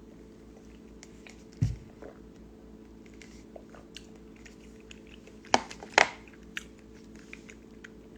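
A person eating a bowl of spicy ramen soup: quiet mouth and eating sounds with a dull thump about one and a half seconds in, then two sharp clicks about half a second apart, among scattered small ticks.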